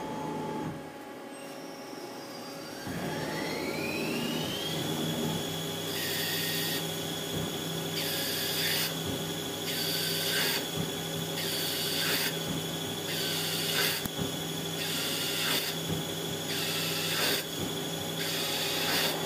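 Mazak CNC lathe spindle speeding up with a rising whine that settles into a steady high tone. The turning tool then cuts the steel part in regular bursts, about one every second and a bit.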